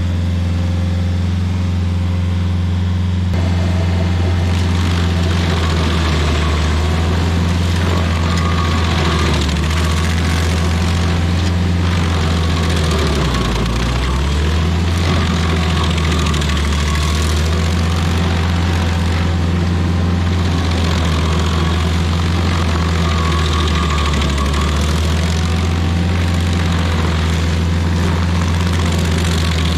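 Rayco RG50 stump grinder running under load, its cutter wheel grinding into a pine stump, a rough chipping noise over the steady engine note. Near the middle the engine pulls down briefly under the cut and recovers.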